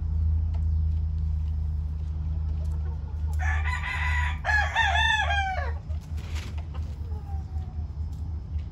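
A gamefowl rooster crows once, about three and a half seconds in: a harsh start followed by a run of pitched syllables that fall away at the end, over a steady low hum.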